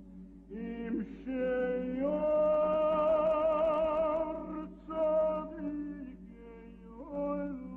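Background music: a solo voice singing slow, long-held notes with vibrato, stepping up in pitch about a second in and again about two seconds in, over a steady low sustained note.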